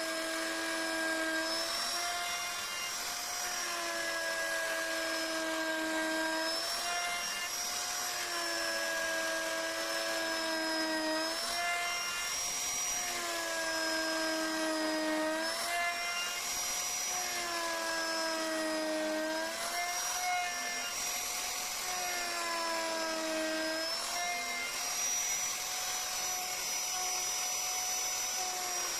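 High-speed electric rotary carving tool running steadily, its whine sagging in pitch and recovering every few seconds as the bit is pressed into the wood and eased off.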